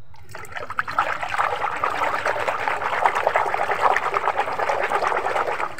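Hands splashing and swishing soapy water in a basin: a dense, crackly splashing that starts just after the beginning and stops abruptly near the end.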